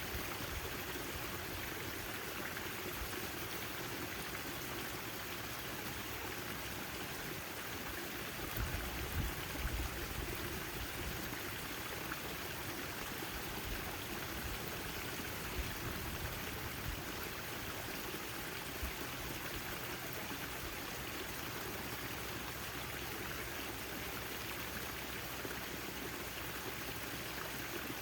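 Backyard garden fountain: water splashing and trickling steadily into its basin, with a few low rumbles about nine seconds in.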